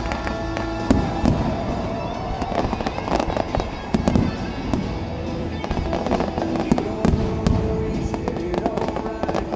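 Fireworks show with aerial shells bursting and crackling in rapid succession, louder bangs about a second, four seconds and seven and a half seconds in, over stadium music on the loudspeakers.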